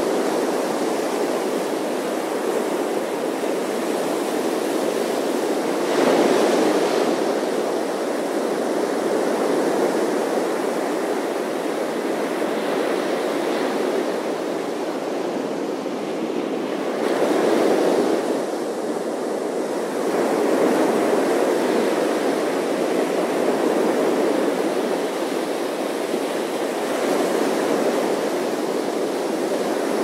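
Atlantic surf breaking on a sandy beach: a steady wash of waves, with louder surges several times as waves break close to the shore.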